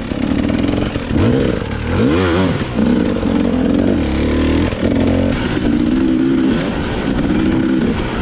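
Off-road motorcycle engine running under throttle as the bike is ridden through a slippery, greasy trail section, its revs rising and falling, with quick drops and climbs in pitch about one and two seconds in.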